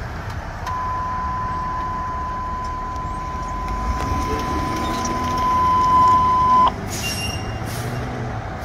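Fire station alert tone: one steady, high electronic beep held for about six seconds, growing louder before it cuts off suddenly. Under it is the low rumble of an SUV driving past.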